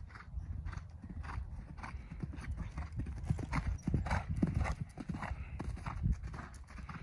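A horse's hoofbeats cantering on sand arena footing in an even three-beat rhythm, loudest as the horse passes close by about four seconds in, then fading a little as it moves away.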